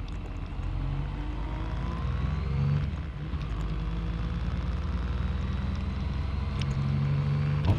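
Yamaha MT-09's three-cylinder engine pulling as the bike rides along, its pitch climbing slowly. The engine note briefly peaks and dips about three seconds in, and there is a sharp click near the end.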